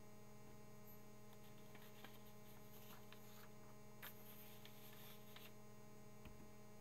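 Near silence: a steady low electrical mains hum on the recording, with a few faint clicks.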